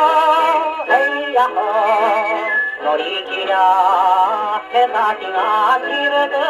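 A 1950s Japanese popular-song 78 rpm record playing through a Columbia Viva-tonal Grafonola acoustic phonograph: long held melody notes with vibrato over accompaniment. The sound is thin and horn-like, with no deep bass.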